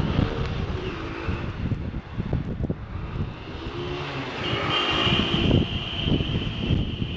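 Street traffic running below, mixed with wind on the microphone, with a steady high-pitched tone coming in about four and a half seconds in.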